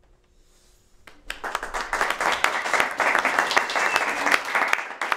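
Audience applauding, breaking out suddenly about a second in after a hush and easing off near the end.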